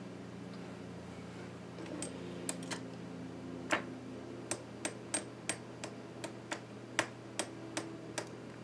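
Small, sharp metallic clicks from a small screwdriver working the tiny screws of an iBook G4. They start about two seconds in and settle into a steady run of roughly two or three clicks a second.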